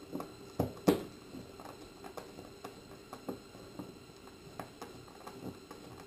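Hand screwdriver driving bolts down through snug holes in a base plate on a fiberglass boat deck: scattered light clicks and knocks, the sharpest just under a second in.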